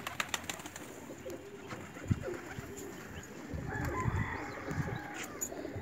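Domestic pigeons cooing in low, repeated calls, louder after the first couple of seconds, with a few sharp wing claps near the start as one pigeon flaps up.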